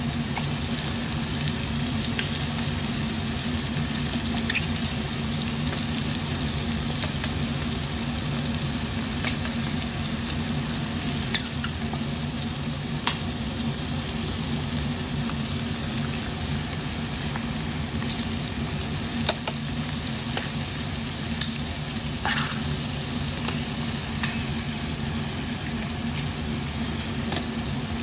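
Battered prawns deep-frying in hot oil in a pan: a steady sizzle with scattered sharp pops and crackles, over a steady low hum.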